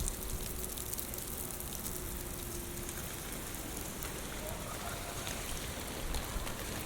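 Typhoon rain falling steadily: an even hiss flecked with many small drop ticks.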